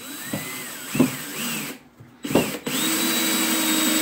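Cordless drill boring into a wooden block: the motor whines up in a few short bursts, then runs steadily from about three seconds in.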